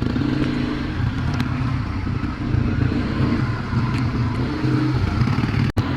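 A motor vehicle's engine running steadily with road noise, a low even hum, which breaks off for an instant near the end.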